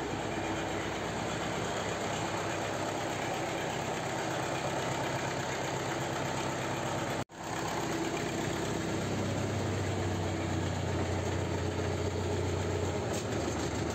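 Belarus MTZ-52 tractor's diesel engine idling steadily. About halfway through, the sound cuts out for an instant and then comes back.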